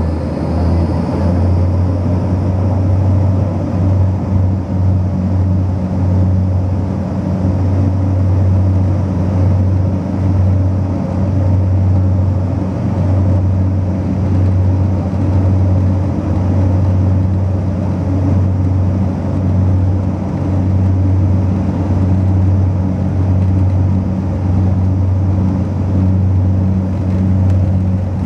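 Fokker F27's Rolls-Royce Dart turboprop engines and propellers running, heard from inside the cabin at a window seat beside the nacelle as the aircraft rolls along the runway. The result is a loud, steady, low propeller drone with a fainter hum above it.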